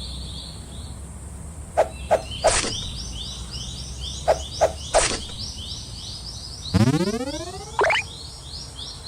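Cartoon sound effects: two quick runs of three short pops, then a rising slide-whistle-like glide about seven seconds in that swoops up sharply at its end. A high, rapid repeated chirping runs underneath.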